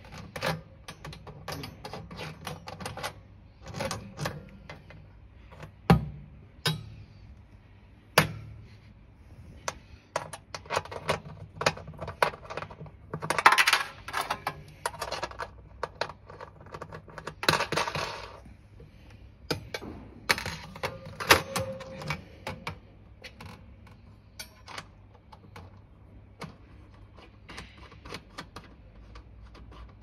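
Metal wire side racks of a microwave oven clicking and rattling against the stainless steel cavity as they are unhooked and handled by hand. A few sharp knocks stand out, and there are two longer bursts of clatter in the middle.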